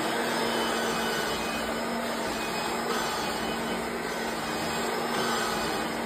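Kirby Generation 3 upright vacuum cleaner from 1990 running steadily while being pushed over a rug, a constant hum under a rushing noise.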